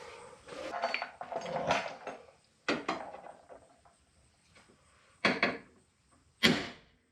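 Hard parts being handled while taking off a handle: a couple of seconds of uneven rattling and clatter, then three separate sharp knocks spaced a few seconds apart.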